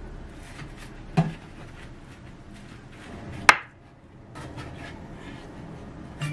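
Kitchen knife slicing down through a block of tofu and knocking on a wooden cutting board: two sharp knocks about two seconds apart, with faint small clicks and rustling between.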